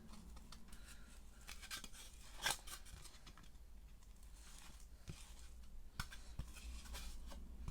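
A screw is twisted by hand into the diorama base to bore a hole for a fence post, giving faint, irregular scraping and crunching with scattered clicks. One louder snap comes about two and a half seconds in.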